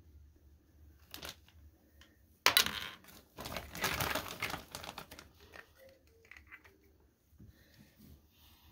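Small hardware and its packaging being handled by hand: a sharp clack about two and a half seconds in, then a couple of seconds of rustling and small clicks.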